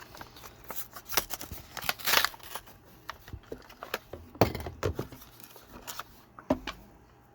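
Packaging of a diecast toy car being handled and opened: a run of short clicks, rustles and knocks, with one loud knock about four and a half seconds in.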